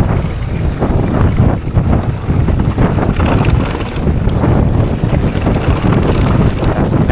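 Mountain bike descending rough downhill trail: wind buffeting the microphone over a steady low rumble of tyres on dirt, with irregular small knocks and rattles from the bike.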